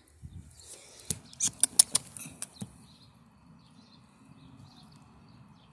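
Handling noise at a door frame: a quick run of about eight sharp clicks and taps over a second and a half, then a faint steady hiss.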